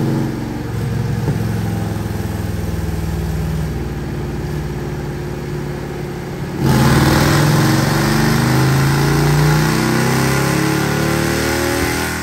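Harley-Davidson CVO Road Glide's Milwaukee-Eight 121 V-twin running on a chassis dyno at a steady part throttle. About seven seconds in it abruptly gets much louder and its pitch climbs steadily through a wide-open-throttle dyno pull, then it backs off right at the end.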